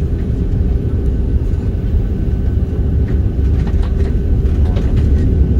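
Steady, loud low rumble of an Airbus A330-300 airliner heard from inside the passenger cabin: engine and airflow noise with a faint steady hum.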